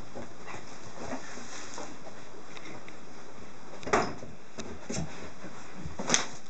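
A rough collie puppy and a Norwegian elkhound play-wrestling: scuffling of paws and bodies with scattered small knocks, and two sharper knocks about four and six seconds in.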